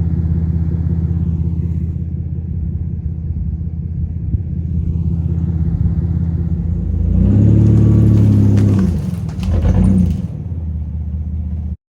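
A vehicle engine idling steadily, then revved up and back down, with a second shorter blip of the throttle soon after; the sound cuts off suddenly near the end.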